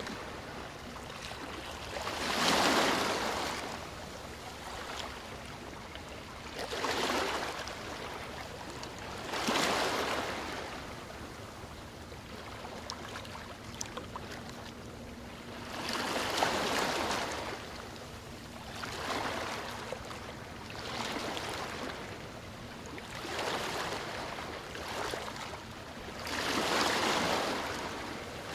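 Sea waves breaking and washing in, a steady hiss that swells and falls off every two to four seconds, with the biggest surges about two seconds in and near the end.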